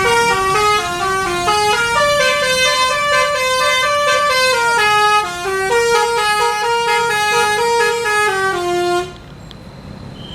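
Bus 'telolet' multi-tone horn (Basuri) playing a rapid melody of stepped notes, cutting off suddenly about nine seconds in.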